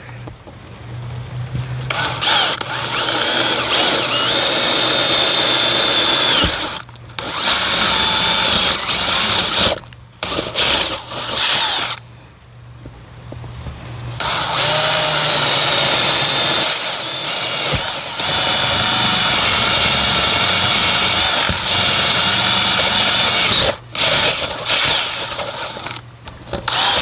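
Power drill with a half-inch bit boring the remaining mounting holes through a garage wall and its sheathing, running in several long bursts with short stops between.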